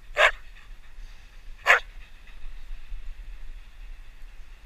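Belgian Malinois giving two short barks about a second and a half apart.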